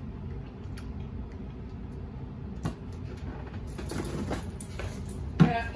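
Steady low room hum with a few faint clicks. Near the end a person's voice cuts in briefly and loudly.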